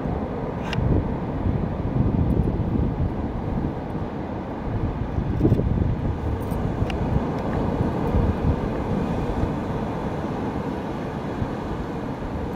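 Wind buffeting the microphone over the wash of surf, a steady gusty rumble. A few faint clicks come through as plastic toy tractor wheels are pushed onto their axles.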